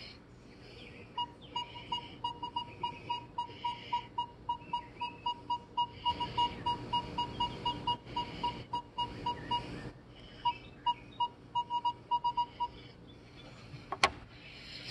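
Minelab Equinox 600 metal detector sounding a repeated short beep, about three or four a second, as a 40% silver Kennedy half dollar is passed over its coil: a high-conductor target reading 31 to 33 on the display. After a brief gap there is a shorter run of beeps, then a single sharp click near the end.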